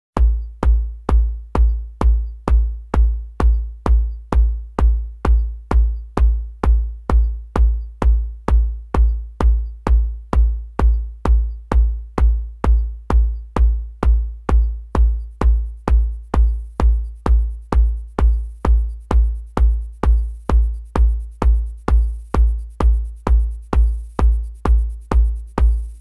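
Electronic techno track opening on a drum-machine kick drum alone: a steady four-on-the-floor beat of about two hits a second. A high, hissing cymbal-like layer fades in about fifteen seconds in and grows.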